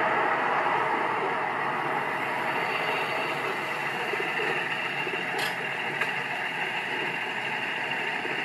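Railway level crossing warning alarm sounding steadily over a constant rush of noise, while the crossing is closed with the barriers down and the lights flashing.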